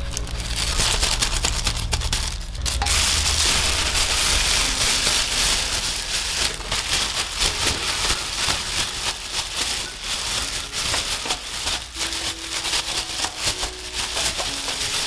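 Thin plastic bag crinkling and rustling as it is shaken, with cut raw potato sticks and cornstarch tumbling inside it. The crinkling becomes denser and steadier about three seconds in.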